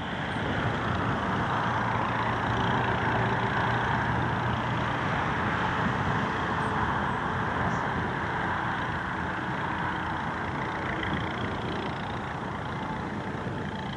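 Distant Spitfire's piston engine, a steady drone as it comes in on approach to land.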